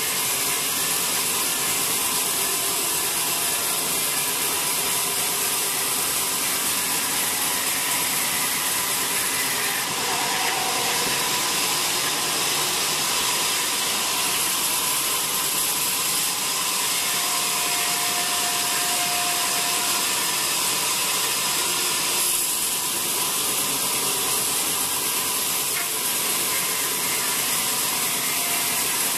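Band sawmill cutting a wet teak log lengthwise into a slab. The blade makes a steady, loud hiss through the wood over the running machine.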